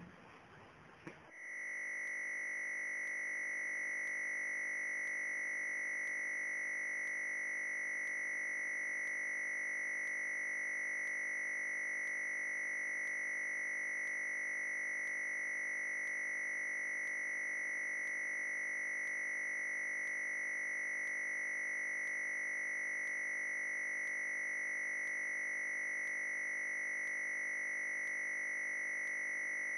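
A steady high-pitched electronic tone comes on about a second in and holds unchanged, with a faint tick about once a second.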